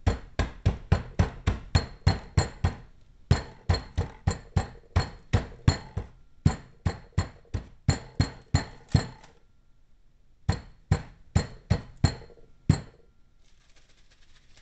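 Rapid repeated blows pounding croutons in a plastic bag on a kitchen countertop to crush them into stuffing crumbs, about three or four strikes a second in four runs with short pauses between, stopping a little before the end.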